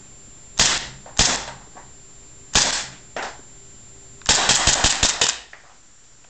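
Western Arms Kimber TLE gas blowback airsoft pistol firing: sharp pops as separate shots over the first three seconds, then a quick string of about seven shots fired in about a second, about four seconds in.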